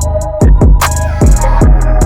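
Background music with a heavy beat: deep bass kicks that drop in pitch, about two to three a second, under ticking hi-hats.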